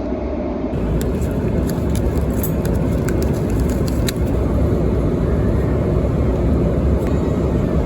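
Airliner cabin noise in flight: a steady low roar of engines and airflow, with a few light clicks and taps.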